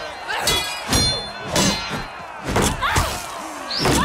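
Fight-scene sound effects of heavy blows and clashing weapons, about seven hits in four seconds, several with a short metallic ring.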